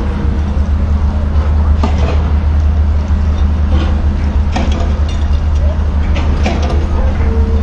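Steady low rumble of a Great Lakes freighter's twin Bergen diesel engines running as the ship moves through the canal.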